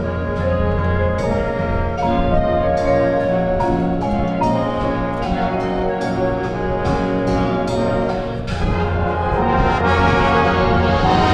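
Marching band playing: brass holding chords over drum strikes, swelling louder near the end.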